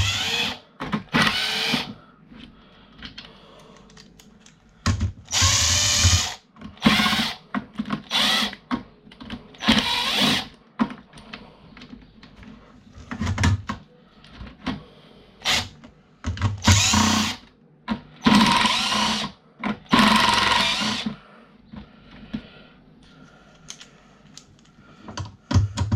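Cheap drill used as a screwdriver, taking the screws out of a fuse board. It runs in a dozen or so short bursts of up to a second and a half, with clicks and knocks of handling between them.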